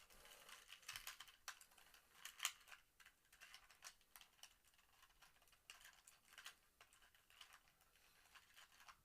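2x2 Rubik's cube being turned quickly by hand: faint, irregular clicks and scrapes of its plastic layers, several a second.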